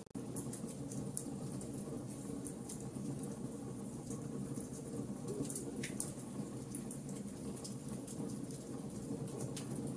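Wood fire burning in a fireplace: a steady low rush of flames with irregular sharp crackles and pops from the burning logs, briefly cutting out at the very start.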